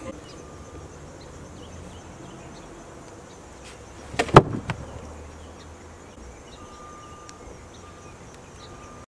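A single loud knock about four seconds in, over a steady low background hum with faint insect buzzing.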